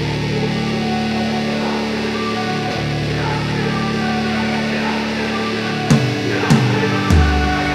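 Background music: a guitar-led track starting with steady held chords, drums and bass coming in about six seconds in.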